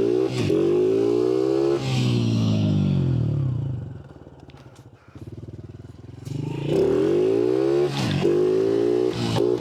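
Dirt bike engine revving up again and again as it pulls away through the gears. It fades out about four seconds in, then comes back loud with more rising revs near the end.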